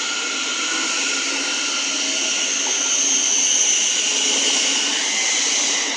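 Thameslink Class 700 electric multiple unit pulling out and moving past the platform: a steady running sound with a high electric whine, swelling to its loudest about halfway through and easing off near the end.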